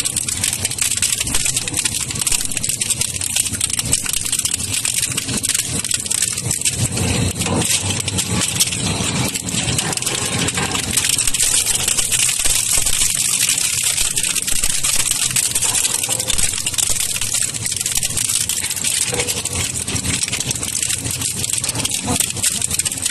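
Double-shaft plastic shredder (Model 600) running under load, its toothed counter-rotating shafts breaking up rigid plastic grating and plate. The result is a continuous loud clatter of cracks and snaps over the steady running of the machine.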